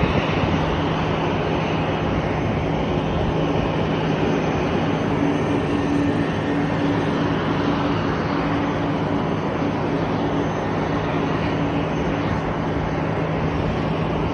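Steady aircraft engine noise: a constant rushing sound with a low hum and a second, higher steady tone running through it.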